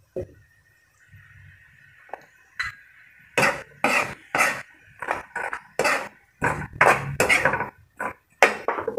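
A utensil scraping and clinking against a wok while onion rings are stirred in a thick soy-sugar sauce. About three seconds in, it becomes a quick run of strokes, about two a second.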